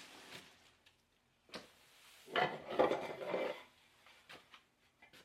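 Loose parts of a flat-pack dining chair knocking and clattering as they are handled: a single click, then about a second of rattling knocks in the middle, then a few light taps.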